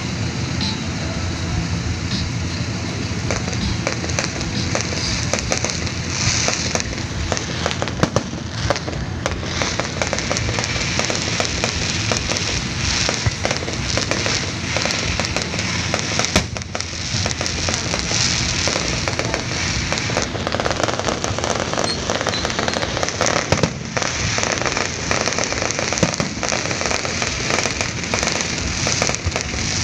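Fireworks display firing a continuous barrage: rapid pops and bangs of shell bursts over steady crackling, with frequent louder reports.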